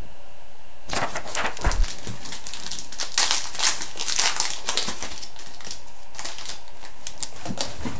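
A trading-card pack wrapper being torn open and crinkled by hand, with cards being handled. The crackling starts about a second in and is busiest in the middle.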